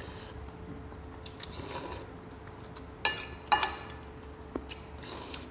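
Metal spoons working on ceramic plates and bowls during a meal: small scrapes and taps, with two sharp ringing clinks about three seconds in, and faint chewing.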